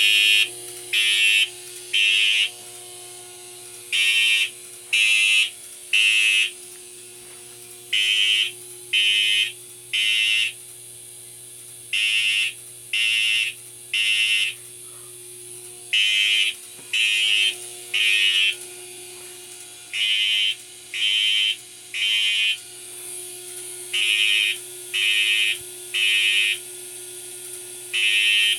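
Siemens UMHU fire alarm horns sounding in the temporal-three evacuation pattern after a manual pull station has been pulled: three half-second honks a second apart, a pause, then the group repeats about every four seconds.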